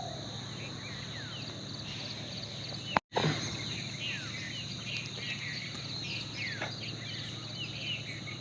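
Birds chirping, many short falling calls from several birds, over a steady high insect drone. A click and a split-second dropout about three seconds in.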